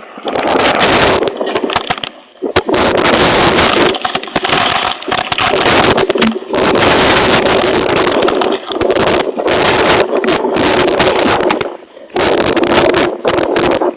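Hail pelting a hail protector cover in a dense, loud rattle of impacts, easing briefly about two seconds in and again near the end.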